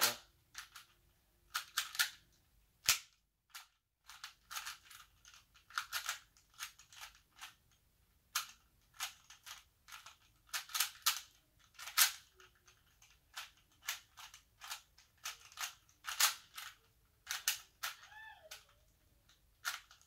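3x3 plastic Rubik's Cube being turned by hand: irregular clicking and clacking as the layers snap through quick turns, often several in a rapid cluster.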